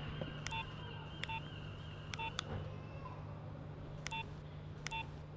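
Mobile phone keypad beeps: about five short tones at uneven intervals as keys are pressed, each with a small click, over a steady low hum.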